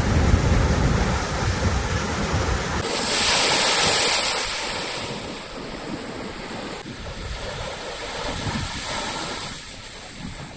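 Typhoon winds and rough surf: wind rumbling on the microphone with waves washing in, a louder hissing surge about three seconds in, then easing off.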